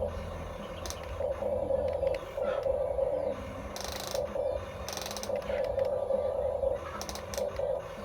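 Small electric gear motors of a toy-scale RC excavator whirring in short on-off bursts as the controls are worked, with a few brief scraping or rattling bursts partway through.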